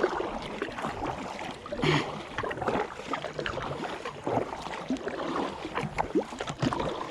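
Water lapping and gurgling against a kayak's hull, pushed by a strong current, with small irregular splashes throughout.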